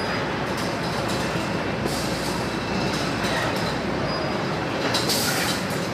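Automatic poultry slaughtering line running: the overhead shackle conveyor carrying hanging chickens makes a steady mechanical noise, with short hissing bursts about two seconds in and again about five seconds in.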